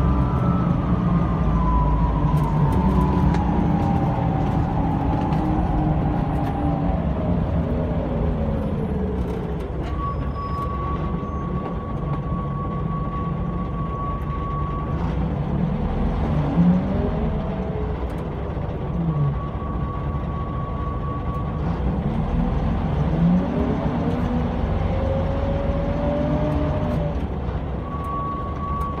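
Scania L94 bus engine and drivetrain heard from inside the passenger cabin on the move, with a steady low running noise and road rumble. A whine falls slowly in pitch over the first several seconds as the bus slows, then rising whines come back twice as it pulls away and goes up through the gears. A steady high tone sounds three times.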